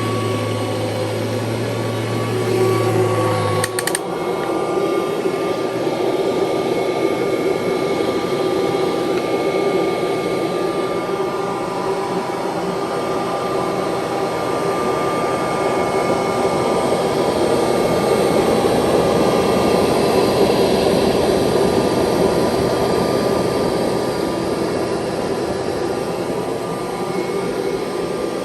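1989 Kirby Legend II upright vacuum cleaner running on carpet: a steady motor whine over the rush of air. About four seconds in there is a click, the low hum drops out, and the running turns rougher and noisier.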